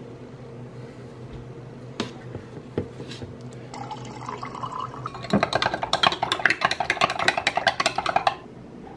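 Two sharp taps of a plastic scoop about two seconds in. Then water poured from a plastic filter pitcher into a drinking glass, followed by about three seconds of rapid clinking against the glass, about six a second, as powdered supplement is stirred into the water.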